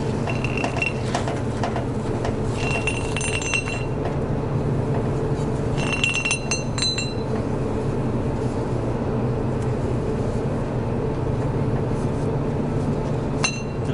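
Metal clinking in three short bursts, each with a brief ringing note, as the steel hooks and ratchet buckles of cargo lashing straps knock together while the straps are rolled up. A steady low engine hum runs underneath.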